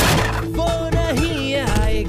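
Music: a melody with sliding pitches over a steady low beat.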